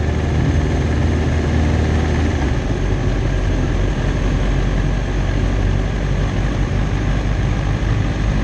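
Kawasaki Ninja ZX-10R's inline-four engine running at low revs as the bike rolls slowly, heard close from the bike. About two and a half seconds in, the engine note drops lower and holds there, near idle.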